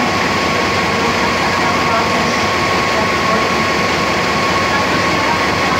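Standing train's diesel engines idling: a loud, steady drone with a steady high whine running through it.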